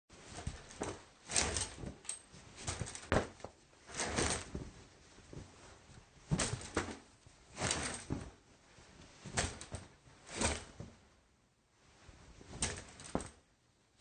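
Sound effect of someone stepping out of a shower: a shower curtain drawn along its rod and a towel rubbed over the body. It comes as a series of about a dozen short swishing strokes, with a brief lull near the end.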